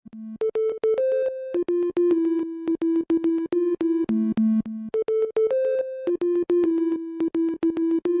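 Background music: a synthesizer melody of short, rapidly repeated notes, with no drums.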